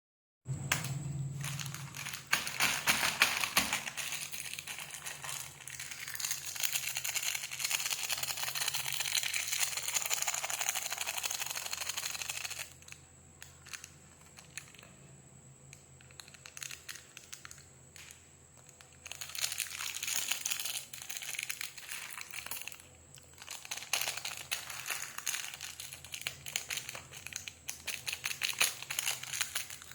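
Candy wrappers crinkling and tearing as candies are unwrapped by hand. Dense crinkling runs for about twelve seconds, goes quieter with scattered small clicks for a few seconds, then returns in shorter stretches.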